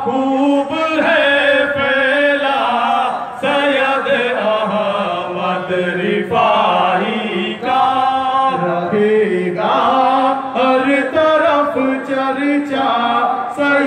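Voices chanting an Urdu devotional song, a manqabat, in sung phrases held a second or two each.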